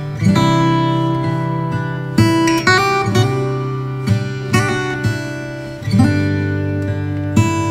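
Background music: acoustic guitar strumming chords, changing to a new chord every second or two.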